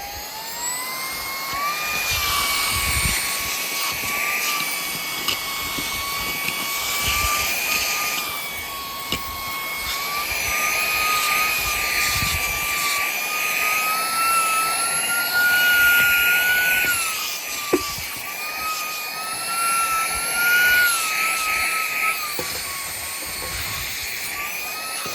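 Hasfu cordless handheld car vacuum running on its high speed setting. Its motor whine rises in pitch in the first second or so as it comes up from low to high, then wavers up and down as it picks up dirt, with a few short clicks.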